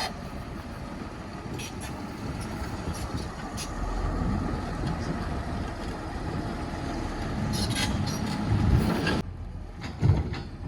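1988 John Deere 690D excavator's diesel engine running under hydraulic load while the machine handles logs, getting louder about four seconds in, with a few short knocks. The sound drops off suddenly about nine seconds in, followed by a thud.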